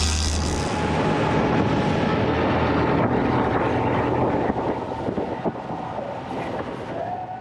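Boat engine running under way, with a rush of wind and water; it grows somewhat quieter in the second half.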